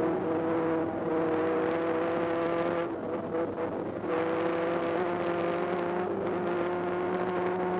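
Sport motorcycle engine at high revs, heard from on board during an ice race. It eases off about three seconds in, then comes back on the throttle with the revs slowly climbing.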